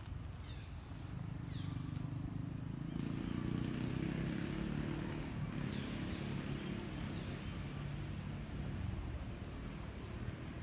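Birds chirping outdoors: short high chirps about once a second over a steady low rumble.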